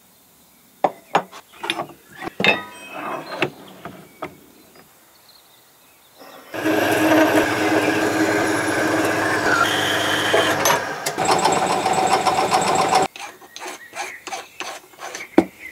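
Aluminium stock clinking and knocking as it is handled, then a horizontal metal-cutting bandsaw running and cutting an aluminium bar for about six seconds before it stops suddenly, followed by more short clinks as the piece is worked by hand in a milling-machine vise.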